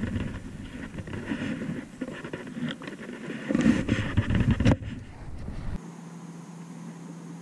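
Rustling, bumping handling noise on an action camera's microphone, loudest just before the middle, with a sharp knock about four and a half seconds in. About six seconds in it changes abruptly to a steady low hum.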